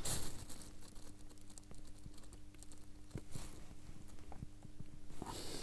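Faint scattered clicks and scratches of a fine steel tool prying at stubborn, rust-stuck keyless-works parts of a watch movement, over a faint steady hum.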